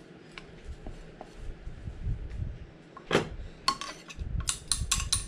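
Dishes and utensils clinking and knocking, with one sharp knock about three seconds in and a quick run of clinks near the end.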